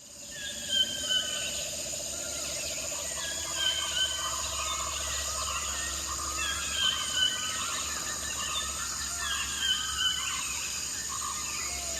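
Jungle ambience fading in: a steady chorus of insects with bird calls that come in pairs about every three seconds.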